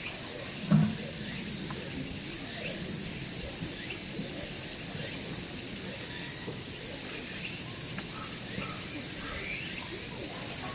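Steady, high-pitched drone of insects, with a single dull thump about a second in.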